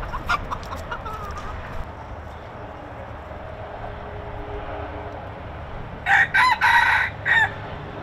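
Rooster crowing once about six seconds in, a loud call in several parts lasting about a second and a half. Before it come a few short, soft clucks and chirps from the flock over a steady low hum.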